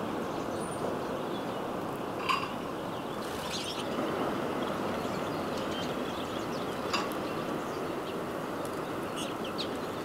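Several short songbird calls and chirps, scattered through, over a steady background hiss; the loudest is a sharp call about two seconds in.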